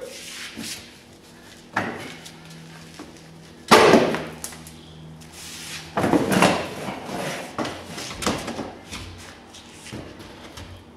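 Plastic rear bumper cover of a Mitsubishi Verada being wrenched off the car: a series of sharp cracks and knocks as its retaining clips and tabs pop free, the loudest about four seconds in.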